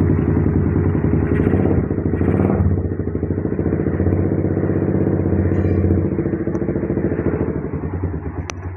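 Suzuki Satria FU's single-cylinder four-stroke engine running steadily at idle through its aftermarket exhaust, with a brief rise about two seconds in. The engine runs after its spark-plug cap and wire have been wrapped against water to stop it cutting out.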